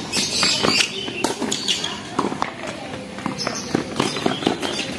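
Tennis rally on a hard court: sharp knocks of the ball off the rackets and the court surface, coming irregularly several times a second, mixed with the players' footsteps.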